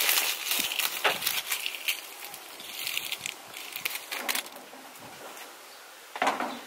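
Gloved hands crumbling and dropping potting soil into a metal planter: dense rustling with many short ticks, and a louder handling sound near the end.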